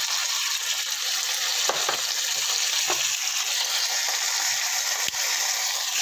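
Whole chicken sizzling in hot oil in a pan, a steady hiss with a few light clicks through it.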